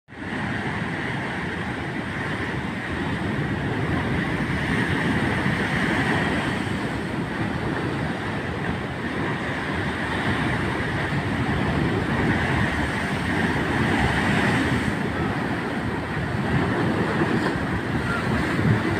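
Storm surf: big waves breaking and foam surging up the beach, a continuous rushing noise that swells and eases slowly.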